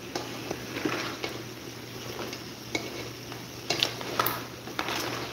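Crabs and vegetables stirred in a pot: irregular clicks and scrapes of shells and utensil against the pot, over a steady sizzle of the pan cooking nearly dry.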